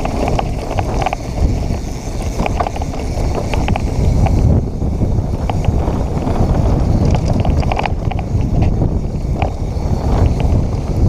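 A Santa Cruz Hightower mountain bike riding over a dirt trail, with steady wind rumble on the action camera's microphone, tyre noise, and frequent short clicks and rattles from the bike.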